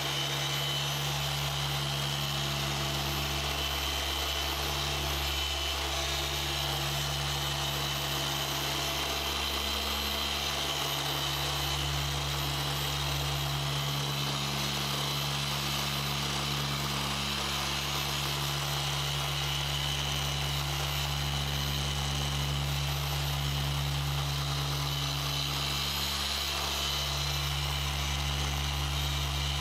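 Rupes random-orbital machine polisher running steadily with its pad on the paint, compounding a white car panel: an even, unchanging motor drone with a faint high whine.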